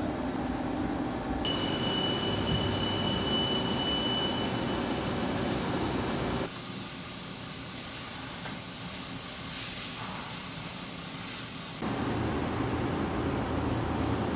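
CNC machine-shop noise in a few abrupt cuts. A steady high whine over machine noise comes first, then a loud steady hiss, then a lower machine rumble.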